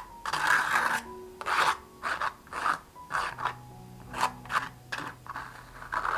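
Metal palette knife scraping and smearing thick acrylic paint across a canvas in quick repeated strokes, about two a second.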